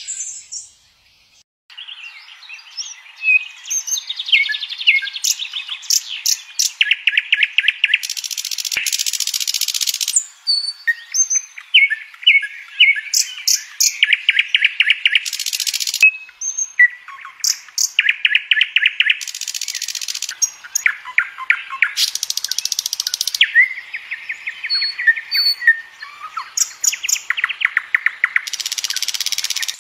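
Wild songbirds singing: fast, evenly pulsed trills recur every few seconds among scattered chirps, whistles and short buzzy very high notes.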